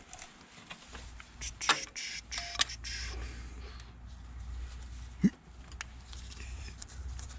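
Hand tools clicking and tapping on metal engine parts as the motorcycle engine's tensioner is being taken off: a few sharp clicks, with a louder ringing metal tap about five seconds in.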